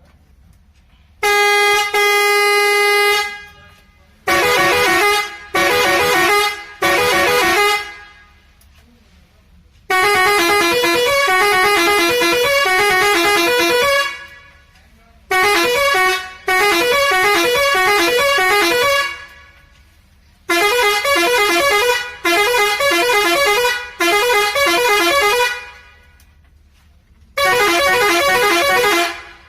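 A series of Indian truck horns sounding one after another, with short pauses between. The first blast holds one steady note. Most of the rest are musical horns stepping through short tunes of changing notes.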